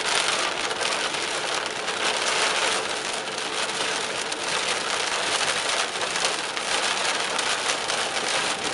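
Heavy rain falling on a car's windshield and roof, heard from inside the car: a dense, steady patter of many small drops.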